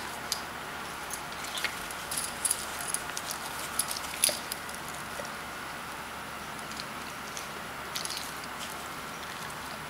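Metal tags on a dog's collar clinking lightly and irregularly as the dog moves its head, over a steady faint hiss. The clinks come in small clusters, most about two to four seconds in and again near eight seconds.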